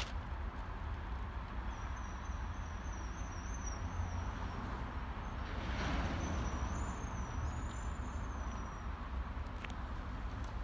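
Freight train of covered wagons rolling along the track, a steady low rumble that swells briefly about six seconds in.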